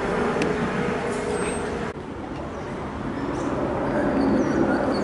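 Jet airliner engines rumbling overhead on approach. About two seconds in the sound cuts abruptly to a second, smaller jet, whose rumble grows steadily louder as it nears.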